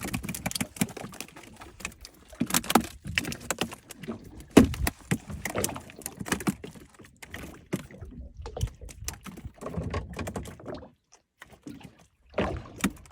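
Irregular knocks, clatter and water noise aboard a small fishing boat, with a brief lull near the end.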